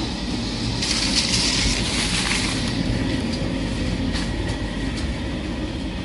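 The mixer for non-autoclaved aerated concrete running with a steady mechanical rumble. A brighter hiss rises over it from about one second in and fades before three seconds.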